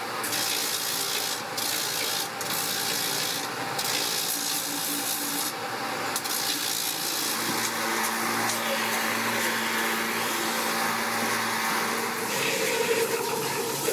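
Spinning sanding drum on a bench motor sanding the rim of a wooden clock face ringed with turned spindles: a steady hiss of abrasive rubbing on wood.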